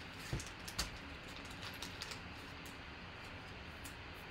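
Trading cards being handled and shuffled by hand: light clicks and taps of card edges, two clearer ones within the first second, over low room noise.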